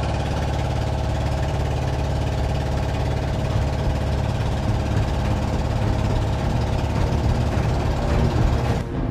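Diesel engine of an outrigger fishing boat (bangka) running steadily at an even speed while the boat travels between fishing spots.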